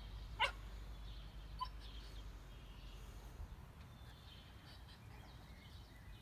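Outdoor ambience with a low steady rumble. About half a second in comes one short, sharp, high-pitched animal call, followed by a few faint bird chirps.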